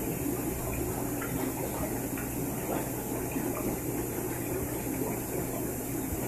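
Aquarium air-lift sponge filter bubbling steadily, with small pops and trickles of bubbles breaking at the water's surface over a low steady hum.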